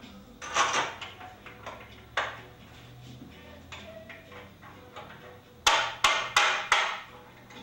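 Four quick, sharp taps, about three a second, near the end: a bolt being tapped into the bed rail until its threads catch. Earlier there are a couple of single knocks from handling the parts.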